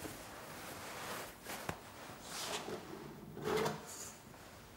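Gloved hands handling metal film cans and a reel of film: quiet rubbing and sliding, with one light click a little under two seconds in.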